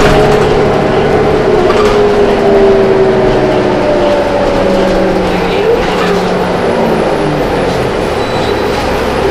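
Inside a New Flyer D40LF city bus under way: the Cummins ISL diesel and drivetrain run with a whine that falls slowly in pitch over the first several seconds, then fades into steady road rumble.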